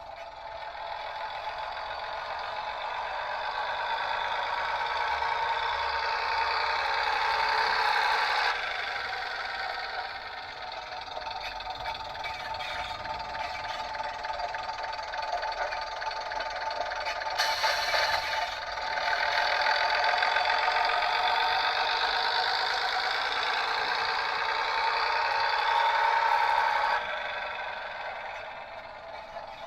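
Sound decoder in a Bachmann OO-scale Class 101 DMU model playing its diesel engine sound through a small onboard speaker, thin with no bass. The engine note builds up, cuts back sharply about eight seconds in, builds again, and falls away near the end.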